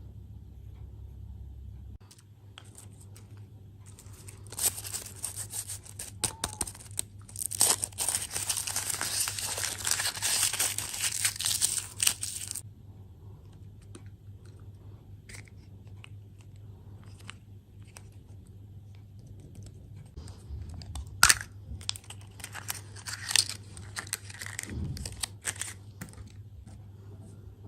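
Plastic candy wrapping being torn open and crinkled. There is a dense crackling stretch of about eight seconds, then scattered clicks, and a second, shorter crackle near the end.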